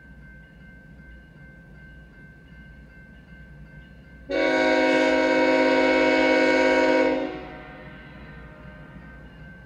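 GE ES44C4 diesel locomotive's air horn sounding one long blast of about three seconds, starting a little under halfway in. It is a warning for the grade crossing, over the faint steady sound of the approaching train.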